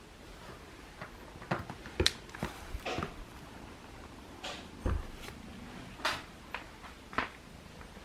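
A scattered series of light knocks and clicks with short scuffing sounds, and one dull thump about five seconds in.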